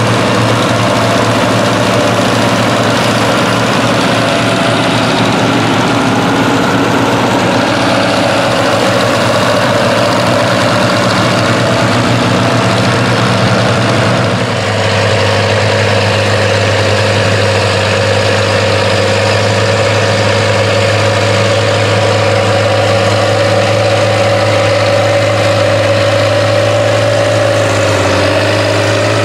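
International 1468's V8 diesel engine running steadily under load while pulling a plow. About halfway through, the sound cuts to another International Harvester tractor's engine working a plow, a steady hum at a different pitch.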